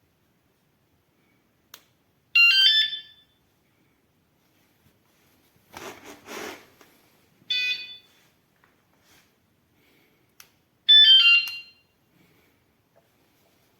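Fosmon 113 dB bike alarm giving three short bursts of electronic chirps with quickly stepping pitch, each under a second and a few seconds apart. A brief rustle or knock falls between the first two bursts.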